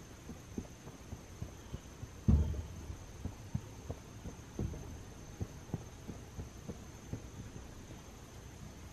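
Shovel blade working into loose dirt: a string of irregular soft thuds and scrapes, with a heavier thump about two seconds in.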